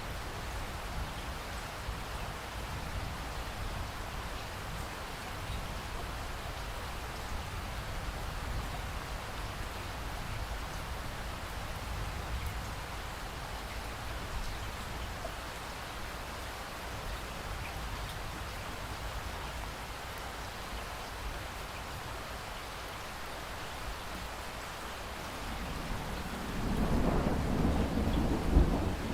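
Steady rain falling, with a low rumble under it. Thunder rolls in near the end, swelling louder for the last few seconds.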